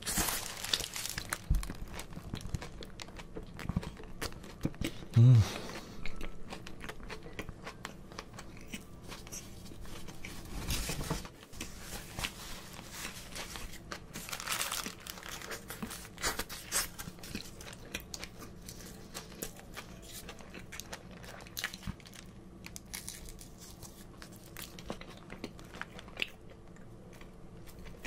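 Close-miked chewing of a McDonald's Big Mac: wet, soft bites and mouth clicks, with the paper wrapper crinkling now and then. A short low hum about five seconds in is the loudest moment.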